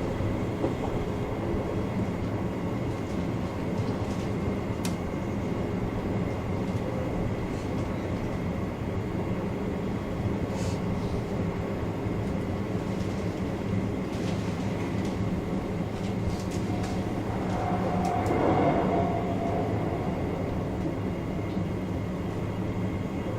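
Electric train running along the line, heard from the driver's cab: a steady running hum with a faint high whine and a few scattered clicks over the rails. Between about 17 and 19 seconds in, a louder mid-pitched tone rises and fades away.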